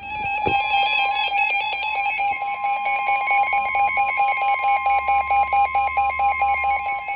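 Emergency alert attention tone from a NOAA Weather Radio broadcast, announcing an incoming weather warning. Two high tones sound together, one held steady and the other pulsing rapidly.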